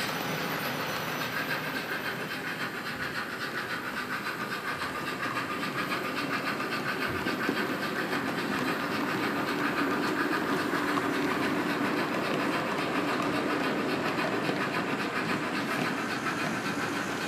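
HO scale Märklin model passenger trains running along the track: a steady, fast clicking rattle of wheels and coaches, a little louder from about halfway through.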